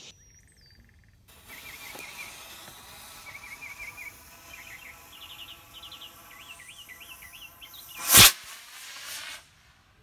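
A small black-powder model rocket motor fires out of a handheld cardboard launch tube about eight seconds in: one brief, loud whoosh with a short, quieter tail. Birds chirp in the background.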